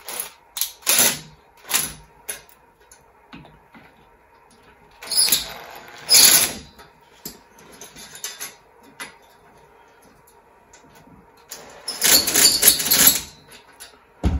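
Cordless impact driver tightening the screw of a hose clamp (Jubilee clip) in short bursts: a few quick ones at first, a couple of longer runs about five seconds in and a longer one about twelve seconds in. A low thump near the end.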